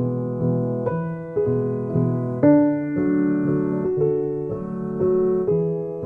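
Background piano music: notes and chords struck about twice a second and left to ring.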